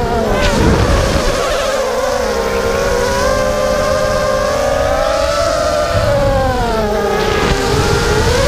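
Brushless motors and propellers of a small FPV racing quadcopter (Xhover 2204 2300kv motors on an MXP230 frame) whining as it flies, the pitch dropping and climbing with the throttle: a sharp dip about half a second in, a rise in the middle, and another drop a little before the end.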